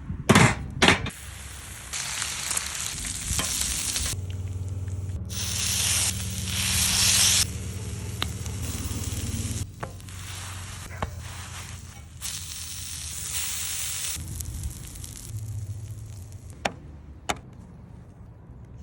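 Food sizzling and frying on a hot cooking surface over a wood fire, the hiss rising and dropping from shot to shot. A few sharp clicks of cooking utensils cut through it, and a low hum sits under the middle stretch.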